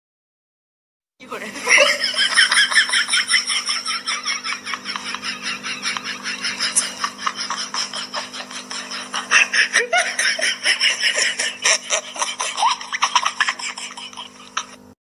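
A person laughing hard in rapid, continuous bursts, starting about a second in.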